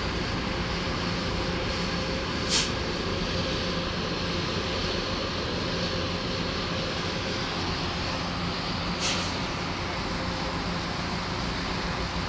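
Rail grinding train running, a steady mechanical noise with a low hum. Two short sharp bursts come through, about 2.5 seconds and 9 seconds in.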